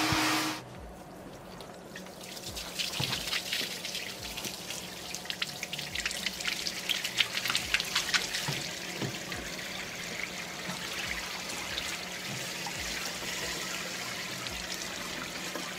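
Dirty water from a carpet extractor's recovery tank pouring out of its drain hose onto a metal floor drain grate, splashing and trickling: the tank being emptied after extracting a car's carpet. A louder machine noise cuts off within the first second.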